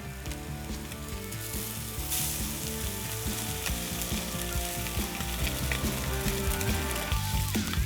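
Background music with a steady sizzling hiss over it, which grows stronger a second or two in.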